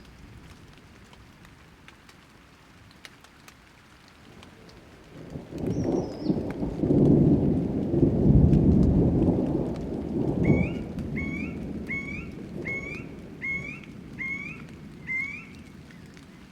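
Thunder rolling over light rain: a deep rumble swells about five seconds in and dies away after ten seconds, with scattered raindrop ticks. Near the end a bird calls a quick series of about seven short rising notes.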